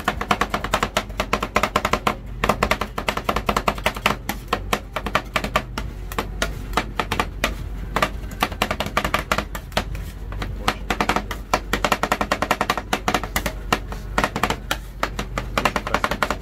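Metal spatulas chopping and scraping on a stainless-steel cold plate as rolled ice cream is mixed: a fast, uneven clatter of sharp metal clicks and knocks.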